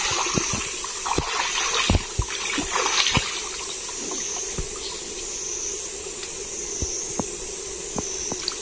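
Shallow stream water sloshing and trickling around a wader's legs, with scattered small splashes and drips. Near the end a mesh fish trap comes up out of the water, with water running off it.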